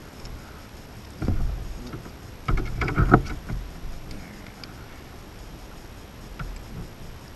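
Handling noise from a small plastic power adapter and its packaging turned over close to the microphone: a burst of rustling and bumping about a second in and another, louder one around three seconds in, then a few light clicks.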